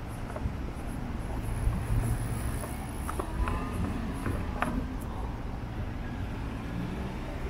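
Low, steady rumble of a vehicle going by, a little louder about two seconds in, with a few faint clicks and squeaks a second or two later.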